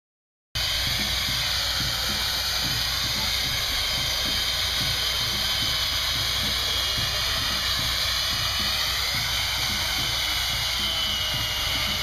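Stihl chainsaw cutting into a block of ice: a steady hissing run that starts suddenly about half a second in.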